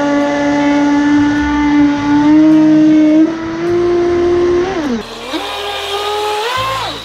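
RC racing speedboat's motor whining at high speed. The pitch climbs slowly as it runs flat out, drops sharply about five seconds in as the throttle comes off, then rises and falls again near the end.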